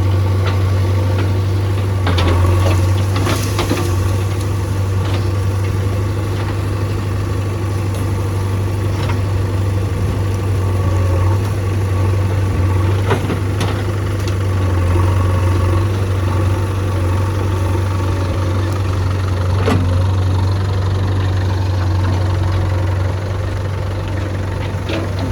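JCB backhoe loader's diesel engine running steadily with a deep hum while the machine digs, with a few short sharp knocks scattered through.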